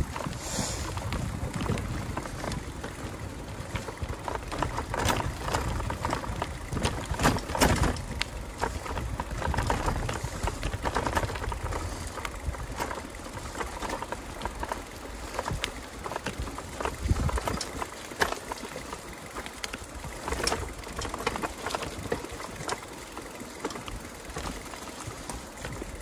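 Yamaha YPJ-TC electric-assist bike riding over a rough rocky trail: irregular knocks and rattles from the frame and chain as the wheels hit rocks and roots, over a low rumble of tyres and wind.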